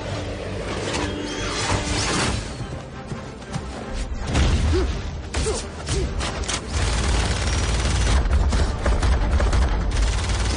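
Action-film soundtrack: score music under a dense mix of sound effects, with repeated sharp crashes and impacts and a heavy low rumble that builds about four seconds in and stays loud to the end.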